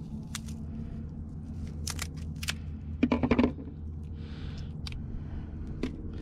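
Scissors snipping through a lobster tail's shell with a few sharp cuts, then a brief clatter of quick knocks about three seconds in, the loudest sound, as the scissors are set down on a plastic lid. A steady low rumble runs underneath.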